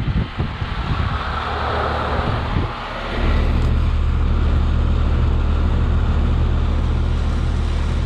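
Outdoor unit of a 2000 Bryant two-ton heat pump running in heat mode, recorded close up. The first few seconds are airflow hiss with rumbling and bumps from handling. Then a steady low hum from its Copeland reciprocating compressor sets in abruptly, about three seconds in, and stays loud and even.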